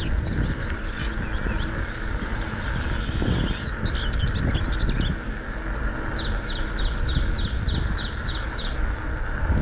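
Bicycle tyres rolling with a steady low rumble, with birds chirping over it. In the second half a bird gives a quick run of repeated chirps, about four a second.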